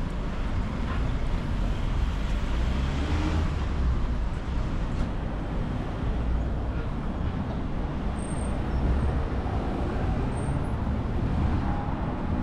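Steady city street traffic noise of passing cars and other motor vehicles.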